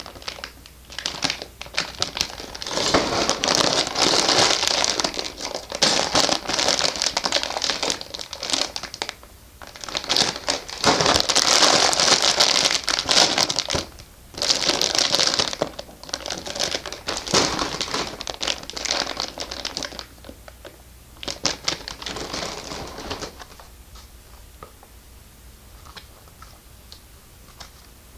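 Plastic LEGO parts bags crinkling as they are handled, in loud bursts for about twenty seconds, then quieter with a few light clicks.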